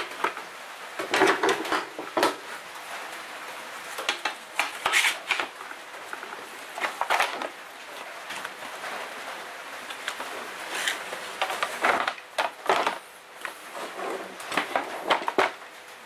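Lengths of aluminium angle being handled, laid against each other and clamped on a workbench: irregular metallic clatter and knocks that come in clusters every few seconds.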